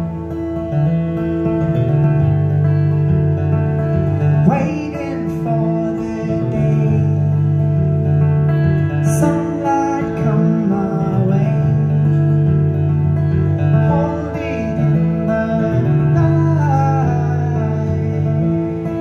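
Acoustic guitar played live on stage through amplification, a continuous run of strummed and sustained notes with a melody line rising and falling over them.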